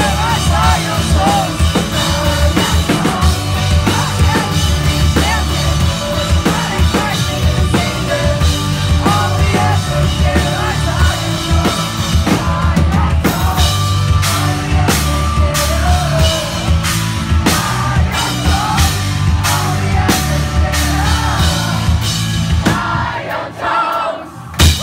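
Rock band playing loud live music on a full drum kit. From about halfway the drums hit hard accents about twice a second. Near the end the music drops away briefly, then there is a single loud hit.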